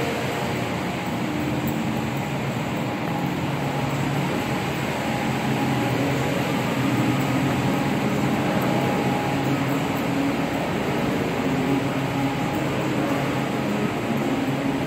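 Steady rushing drone with a faint low hum, typical of a building's air-conditioning and ventilation system running.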